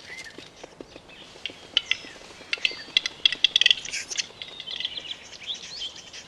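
Male capercaillie's display song: single dry clicks that speed up into a rapid run, followed by a scratchy, wavering whetting phrase.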